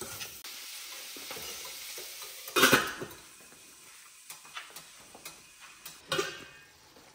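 Onion-tomato masala sizzling in a stainless steel kadai. About two and a half seconds in, a sharp metal clank comes as the steel lid is set on, and the sizzle drops to a faint hiss under the lid. A second clink follows about six seconds in.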